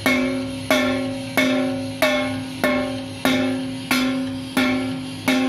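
Wooden drumstick striking the metal lid of a tin can in a steady beat, nine hits about two-thirds of a second apart. Each hit gives a sharp clang with a ringing metallic tone that fades before the next, like a tinny, ringing snare drum.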